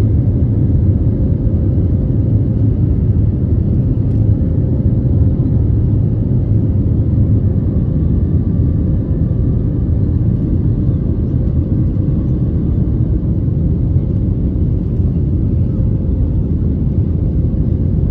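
Cabin noise of an Airbus A320neo in flight shortly after takeoff, heard from a window seat over the wing: the Pratt & Whitney PW1100G geared turbofan engines and the airflow make a loud, steady low rumble, with a faint steady hum running through it.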